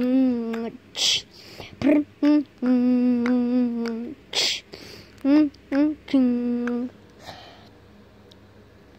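A voice humming a series of long, level notes with a few short ones between and breathy hisses in the gaps; it stops about seven seconds in.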